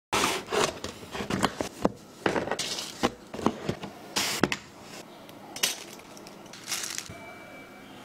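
Irregular clicks, taps and short rustles of packaging being handled and slid on a hard desk. They are busiest in the first five seconds and followed by a few scattered taps.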